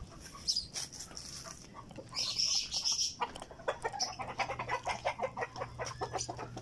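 Chickens clucking in a fast run of short calls through the second half, after a brief hissing rustle about two seconds in.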